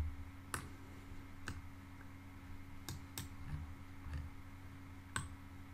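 Faint computer mouse clicks, about six, spaced irregularly, over a low steady hum.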